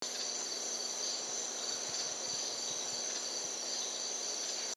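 Steady, high-pitched chorus of night insects, an unbroken shrill buzz.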